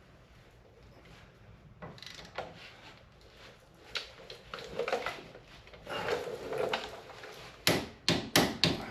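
Tools and parts being handled during brake and hub reassembly: scattered light clicks, knocks and rubbing, then a quick run of sharp, loud clacks near the end.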